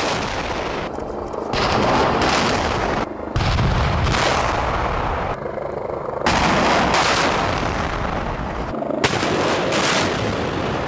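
Explosive demolition charges detonating in rapid sequence around a reinforced-concrete cooling tower, a dense rattle of blasts like gunfire. The sound changes abruptly several times as it is heard from different positions.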